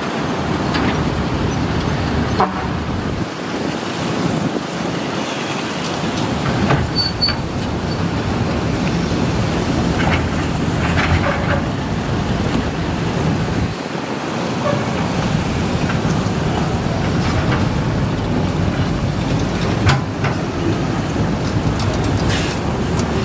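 Matador ME210LC-1 crawler excavator's diesel engine running steadily under working load as it digs, with a few sharp knocks from the bucket and boom scattered through.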